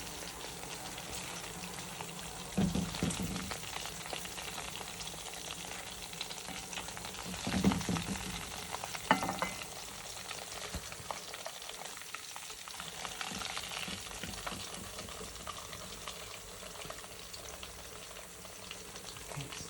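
Chicken pieces frying in hot oil in a pot, a steady sizzle, with a few knocks of a utensil against the pot.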